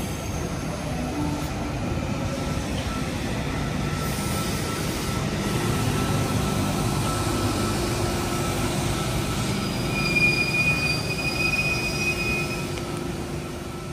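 Comeng V set electric train running on the track with a steady rumble. About ten seconds in, a high wheel squeal sounds for two to three seconds.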